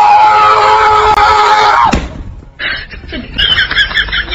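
A long, loud scream held on one pitch that breaks off with a falling drop about two seconds in. After a short gap comes a quieter, higher-pitched sound that pulses quickly.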